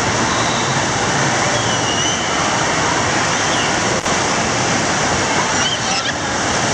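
Wave-pool surf: a steady, loud rush of water as waves break and churn around the waders. A couple of brief high-pitched children's cries sound faintly over it, about two seconds in and near the end.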